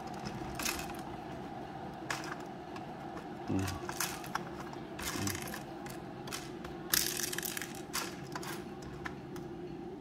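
Scattered clicks and knocks of plastic parts as a homemade coffee-bean grinder is handled and its bean hopper adjusted by hand, with the motor still off, over a steady background hum.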